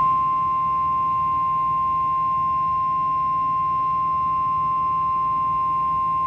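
NOAA Weather Radio warning alarm tone, a single steady high beep held without a break, which signals that a warning message is about to follow. A faint low hum from the receiver lies underneath.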